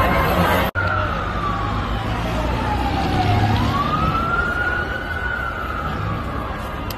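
Emergency vehicle siren in a slow wail: after a brief dropout about a second in, its pitch falls, rises again and slowly falls, over the noise of a crowd on the street.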